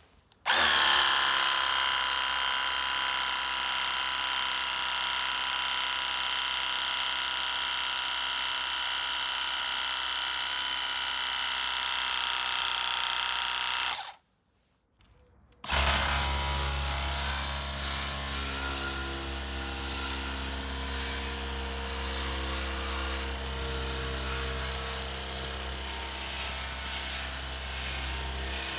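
Parkside PDRA 20-Li D4 20 V cordless pressure washer running: its motor and pump start with a whine about half a second in and run steadily, stop briefly near the middle, then start again and run on with a deeper hum.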